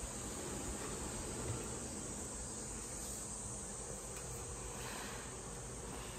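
A steady, high-pitched chorus of insects that does not change.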